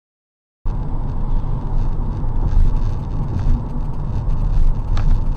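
Steady low rumble of a car's engine and road noise heard from inside the moving car, starting abruptly after a brief silence, with a faint click near the end.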